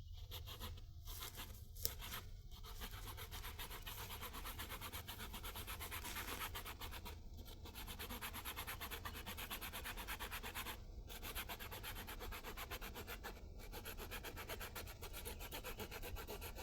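Folding pruning-style hand saw cutting through a wooden stick with steady, rhythmic back-and-forth strokes.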